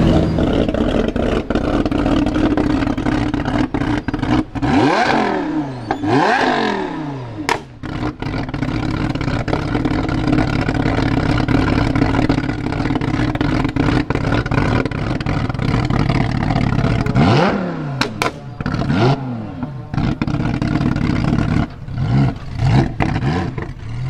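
Lamborghini Huracán's V10 engine running at low speed, revved hard twice about five seconds in and again several times around eighteen seconds, each rev rising and falling in pitch, with sharp cracks from the exhaust.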